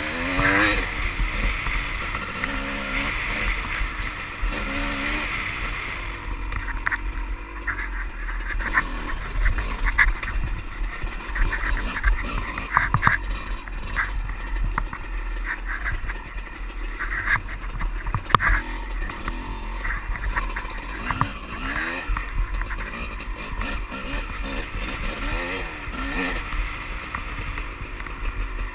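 Dirt bike engine revving up and down as the bike rides a rocky trail, with sharp knocks from the wheels and chassis hitting rocks, heard from a helmet-mounted camera.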